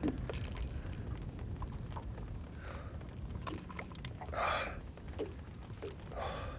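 Steady low rumble of wind and water around a small boat, with a few light clicks from handling and short breathy sounds, the clearest about four and a half seconds in.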